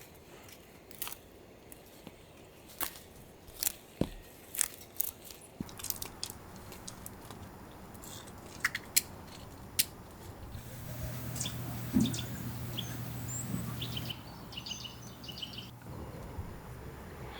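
Sharp clicks of cutlery and dishes with crunchy chewing during a meal. About ten seconds in, a low steady hum joins, and faint bird chirps come near the end.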